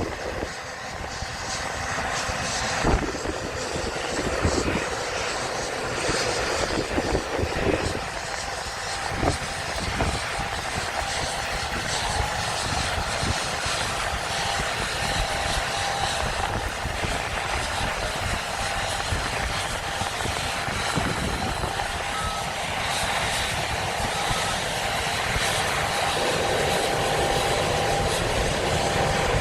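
John Deere combine harvesters running in the field: a steady engine drone with a faint whine.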